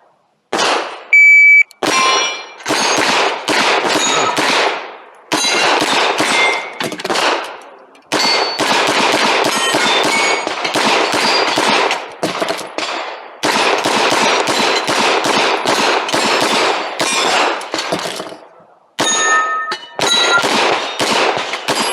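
A shot-timer beep about a second in, then rapid strings of pistol shots from an A01-SD pistol, with knockdown steel plates ringing as they are hit. Short pauses fall between the strings.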